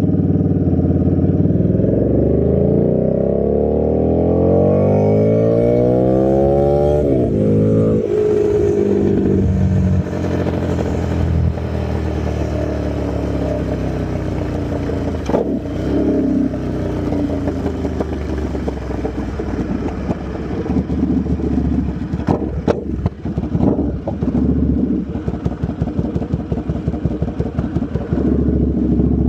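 2009 Buell 1125R's liquid-cooled V-twin running through a loud custom exhaust with no DB killer, accelerating hard with its pitch climbing for about seven seconds before dropping sharply. It then runs at lower revs, turns choppy and uneven in the second half, and steadies again near the end.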